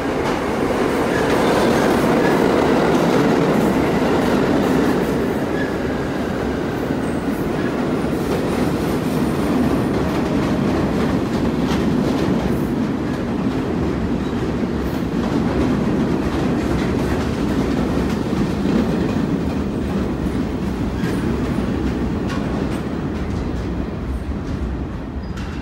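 New York City subway express train running through the station without stopping: a steady rumble of steel wheels on rail with rail-joint clatter. It is loudest in the first few seconds, with a faint wheel squeal, and eases slightly as the train draws away near the end.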